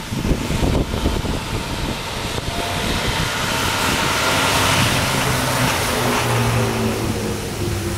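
A vehicle engine running steadily, its hum coming up from about three seconds in. Gusts of wind buffet the microphone in the first few seconds.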